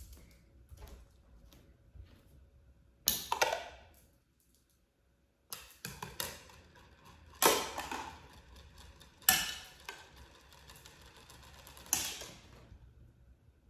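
A series of about five loud clacks and rattles of hard objects being handled, a few seconds apart.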